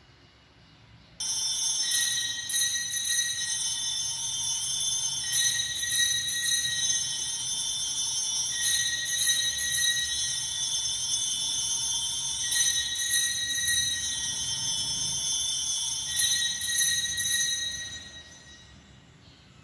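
Church bells rung continuously, a bright jingling peal of many high tones that starts suddenly about a second in, goes in bouts of a few seconds, and fades out near the end; it marks the priest's entrance at the start of Mass.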